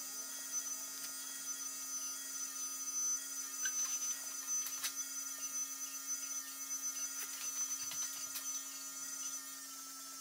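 Steady hum with a faint high whine, over light scratches and occasional small taps of a pencil marking out lines on a wooden board.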